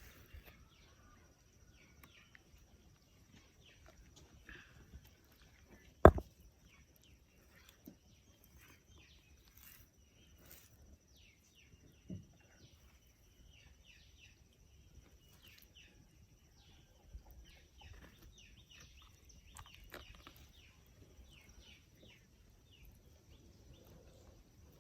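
Quiet rural background with many short faint bird chirps and a faint steady high tone. A single sharp knock comes about six seconds in, and a softer one about twelve seconds in.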